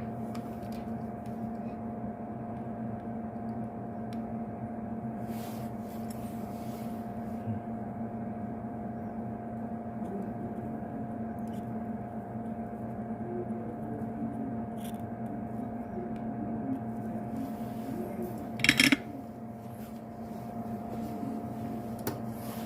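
Steady electrical hum at a soldering bench, with occasional faint clicks and taps of hand soldering work, and one short sharp click or snip about three-quarters of the way through.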